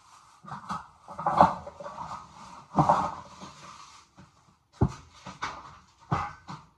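Knocks and rustling of small household items being moved around off-camera, as someone searches through things for a hair tie.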